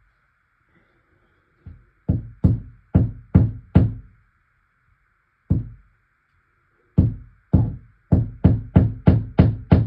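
Hammer blows driving a screw into the wall: a quick run of five strikes, a single strike, then a steady run of about two and a half strikes a second, each with a short ringing decay.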